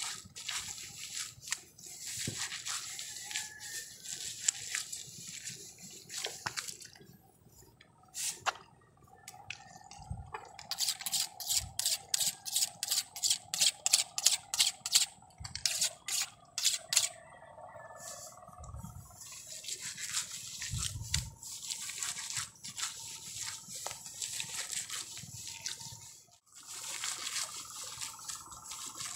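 Wet mud squelching and dripping as mats of rice seedlings are cut loose from a muddy seedbed with a blade and pried out by hand. In the middle comes a quick run of evenly spaced sharp strokes, about two to three a second.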